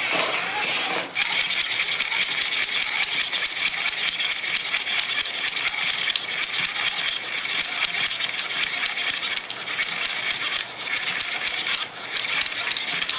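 Dense, continuous jingling rattle of many small clicks, starting about a second in.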